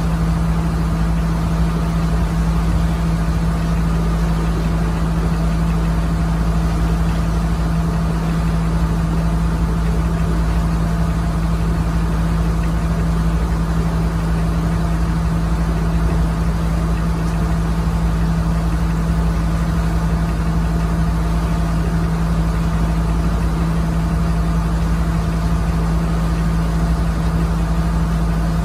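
Passenger launch boat's engine running steadily under way, a constant low drone with a strong steady hum that does not change.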